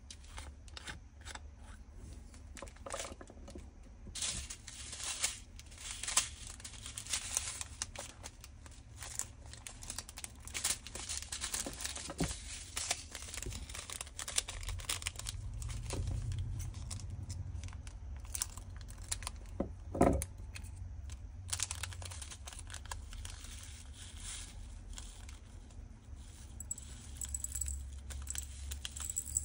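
Small plastic bags of diamond-painting drills crinkling and being torn open, mixed with clicks of small clear plastic bead bottles and their caps being handled. A single louder knock comes about two-thirds of the way in.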